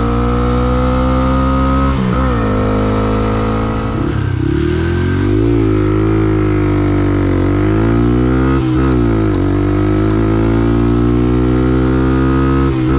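Honda Grom MSX125's 125cc single-cylinder engine with an aftermarket exhaust, running loud under riding; the engine note rises and falls several times, with sudden drops in pitch about two seconds in and near the end, like gear changes.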